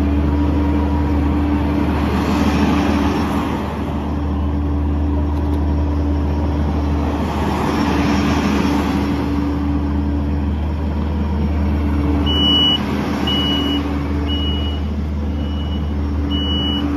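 Kubota SVL75-2 tracked skid steer's 74.3 HP Kubota diesel engine running with a steady low hum, swelling twice as it works. In the last few seconds its reversing alarm beeps about once a second.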